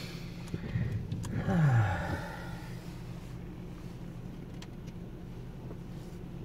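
Touchless automatic car wash machinery, heard from inside the vehicle over a steady low hum. Between about one and two and a half seconds in comes the loudest part: a short falling whir with a hiss as the equipment starts its cycle. A few light clicks follow.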